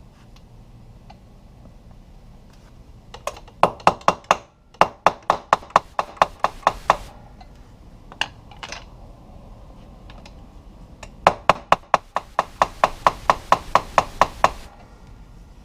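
Hammer tapping a spiral screw extractor into a hole drilled in a broken stud, metal on metal with a short ring to each blow. Two runs of quick taps, about five a second, the first starting a few seconds in and the second near the end.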